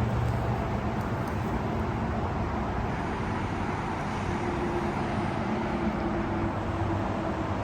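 Steady noise of highway traffic, with a faint steady drone joining about halfway through.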